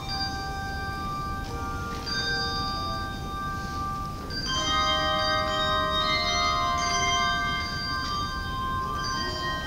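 Handbell choir ringing a slow carol: chords of bells struck every couple of seconds and left to ring on, growing louder about halfway through.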